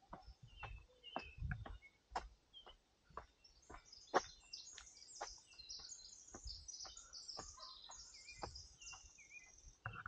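Running footsteps on a dirt forest trail, about two a second, with songbirds chirping high and busily from a few seconds in until near the end.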